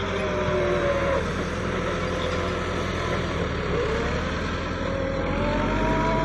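Massey Ferguson tractor's diesel engine working hard under load while climbing a sand ramp with a heavy pull. Its pitch sags about a second in and again around four seconds, then rises near the end as the engine picks up speed.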